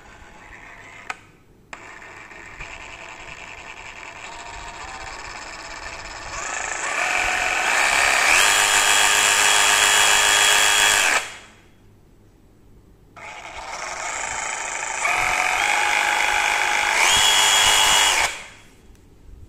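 DeWalt DCS382 20V brushless cordless reciprocating saw free-running with no blade fitted. Its variable-speed trigger is squeezed further in steps, so the motor whine climbs in pitch and gets louder. After a short blip it runs twice, about nine seconds and then about five, each run cut off suddenly when the trigger is let go.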